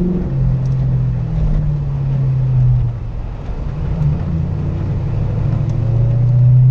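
2004 Ford Mustang GT's 4.6-litre V8, heard from inside the cabin pulling the car along at low speed. Its note sinks a little at first, falls away briefly about three seconds in, then climbs steadily under gentle acceleration.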